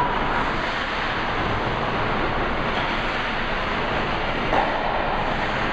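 Steady noise of a hockey rink during play, with one short sharp knock about four and a half seconds in.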